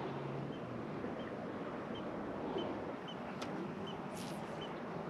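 Steady wind and water noise on an open lake, with a low hum, likely the kayak's electric trolling motor, that stops about a second in.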